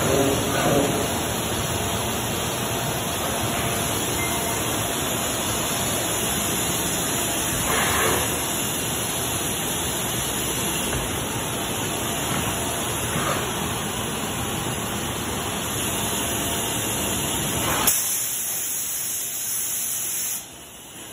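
Steady rushing hiss of air from a Homag BMG 311 CNC router's air system, with a few faint knocks. It drops away sharply near the end.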